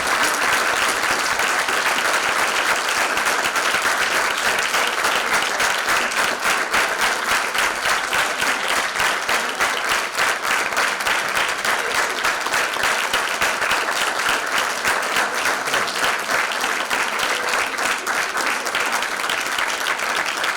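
Audience applauding steadily in a theatre hall, a dense patter of many hands clapping.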